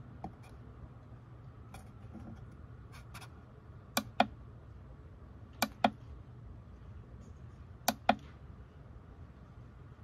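Push buttons on an inverter charger remote panel pressed three times about two seconds apart, each press a sharp double click as the button goes down and comes back up, with a few fainter clicks before them, over a low steady hum.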